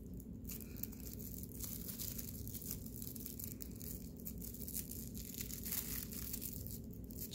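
Plastic-bag yarn (plarn) crinkling and rustling in soft, irregular crackles as it is pulled and worked with a crochet hook into single crochet stitches.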